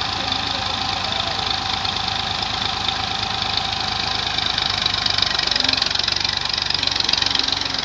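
Massey Ferguson 135 tractor engine running steadily at idle, growing a little louder about five seconds in.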